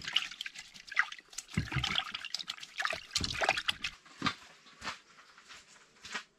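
Water trickling and splashing in irregular bursts as hands are washed at a camp hand-washing station. It gets quieter after about four seconds.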